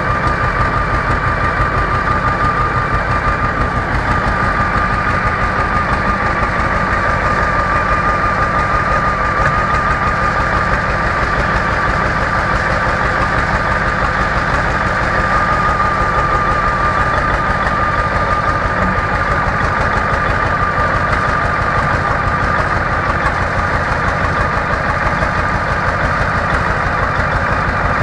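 Competition pulling tractor's large engine idling steadily: a fast, even firing beat with a steady high whine over it.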